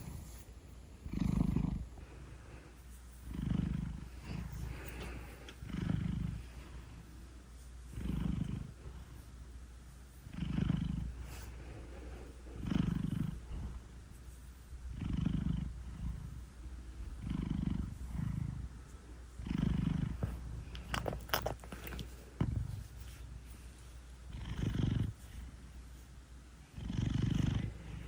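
A big domestic cat snoring while it purrs, in deep regular breaths: a loud snore swells about every two seconds over a continuous low purr. A few sharp clicks come about three-quarters of the way in.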